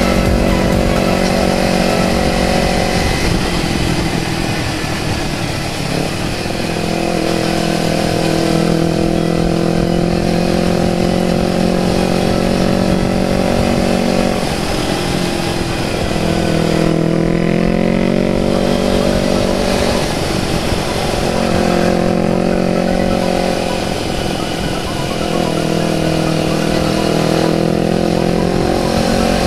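Motorcycle engine running at riding speed over a steady rush of wind noise, its note dropping off and picking up again several times as the throttle is eased and reopened.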